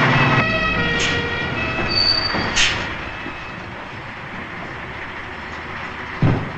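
Saviem JL 29 garbage truck pulling up, with two short high brake squeals about one and two and a half seconds in over the running truck. A dull thump comes near the end.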